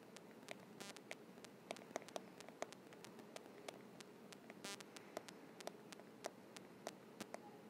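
Faint, irregular ticks of a stylus tip tapping and sliding on a tablet's glass screen during handwriting, over a steady low hiss.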